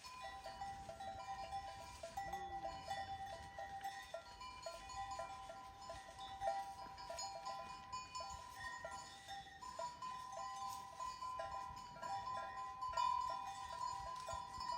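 Many small bells on a grazing flock of sheep or goats clink and ring continuously and unevenly, with a faint bleat about two seconds in.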